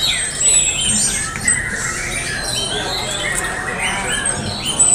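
Several white-rumped shamas (murai batu) singing at once in competition: a dense, overlapping tangle of high whistles, quick trills and sliding notes.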